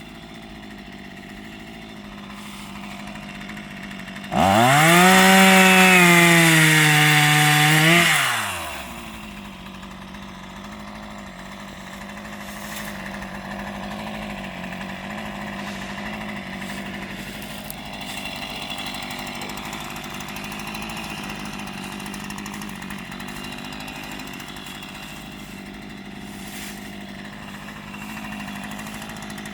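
Two-stroke chainsaw idling. About four seconds in, it is throttled up hard to full speed, with the pitch wavering for about four seconds. It then drops back to a steady idle.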